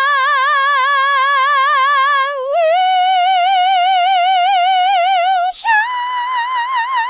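Synthetic female singing voice from the Omnivocal Beta 2 AI vocal plugin, holding long notes with even vibrato on the word "I". It steps up in pitch twice, the second time on "will" about five and a half seconds in, which starts with a breathy onset.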